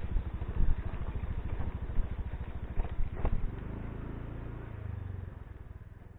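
Honda motorcycle engine idling with a steady pulse and a few clicks, then switched off about halfway through, its sound fading away.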